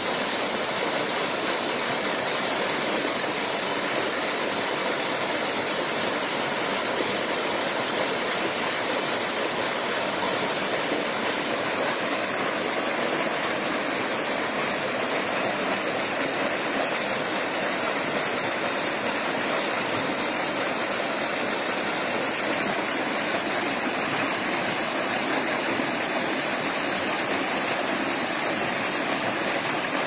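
Water rushing steadily over rocks in a waterfall cascade, an even, unbroken rush.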